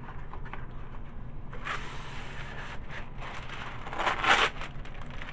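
Wax paper being pulled off its roll and torn from the box, in two rustling, ripping bursts: one about two seconds in and a louder one about four seconds in.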